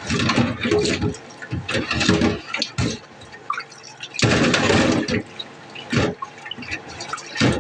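Water running in a kitchen sink in several short spurts, the longest lasting about a second a little past the middle.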